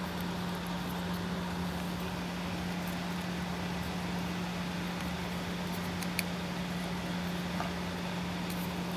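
Steady low background hum with a faint hiss. A few faint, short clicks and rustles come from fingers working servo wires into place in a model helicopter frame; the clearest click is about six seconds in.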